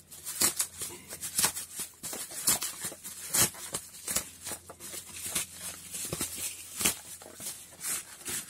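Toy packaging being handled: irregular rustling, crinkling and small clicks as an item is taken out.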